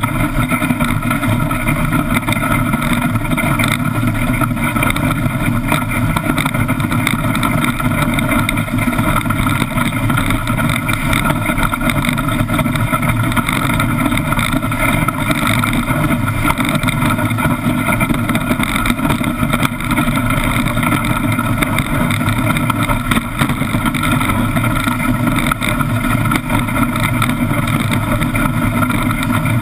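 Wooden iceboat sailing at speed over lake ice: a loud, steady rumble and hiss of its runners scraping the ice, carried through the hull, with wind rushing past.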